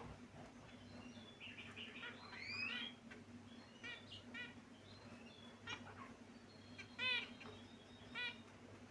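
Caged pet finches chirping: scattered short calls, busier with a gliding call two to three seconds in, the loudest call about seven seconds in. A faint steady low hum lies under them.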